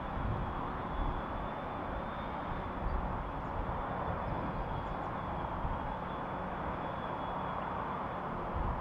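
Claas Jaguar forage harvester chopping grass for silage, its engine and chopping gear running steadily alongside the tractor and trailer taking the crop, with a faint steady high whine.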